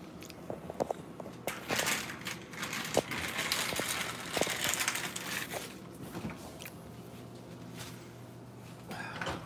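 Plastic bag of shredded cheese crinkling and rustling as cheese is shaken out of it, with a few sharp clicks among the crinkling.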